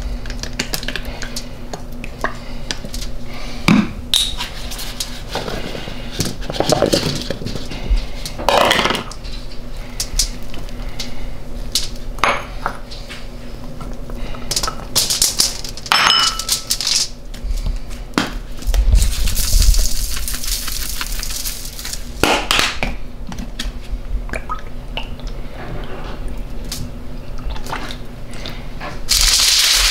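Glass bowls clinking and knocking on a granite countertop as baby potatoes, carrots and chopped onion are tipped out onto aluminium foil, with scattered foil crinkles. Near the end, a loud continuous crinkling sets in as the foil is folded up into a packet.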